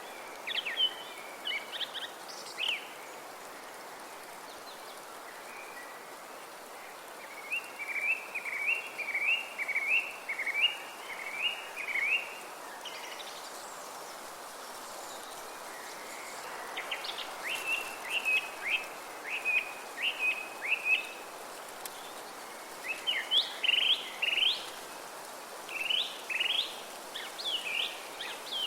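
Forest ambience: songbirds singing in several bouts of quick, repeated short chirps over a steady hiss of wind through the trees.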